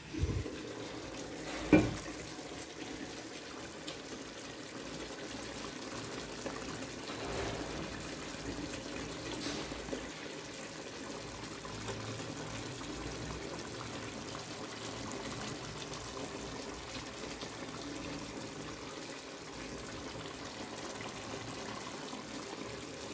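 A glass pot lid knocks as it is lifted off, with a sharp clink just under two seconds in, the loudest sound. Then the coconut fish curry in the pot bubbles at a steady simmer.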